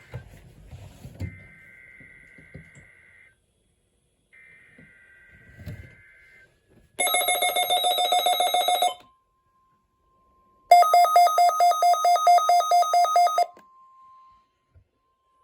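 NOAA Weather Radio weekly test alert: two warbling SAME data bursts, then the receiver's alarm beeping rapidly in two loud runs. A faint steady 1050 Hz warning tone sounds between the runs and after them.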